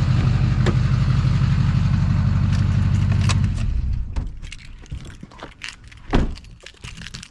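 Chevrolet Silverado 2500HD turbo-diesel V8 idling, then switched off about three and a half seconds in and running down to a stop. After it stops come scattered light clicks and knocks, with one louder thump about six seconds in.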